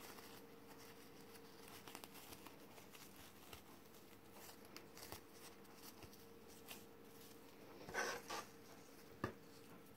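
Faint rustling and handling of satin ribbon as it is threaded and straightened, with a brief louder rustle about eight seconds in and a single sharp click just after.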